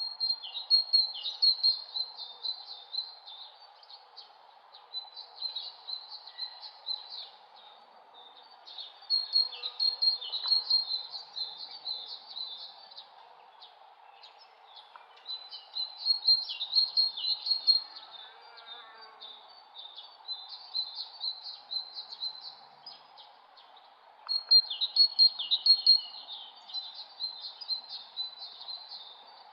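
A songbird singing in repeated phrases of rapid, high chirps, each a few seconds long with short pauses between. A faint steady hum lies underneath.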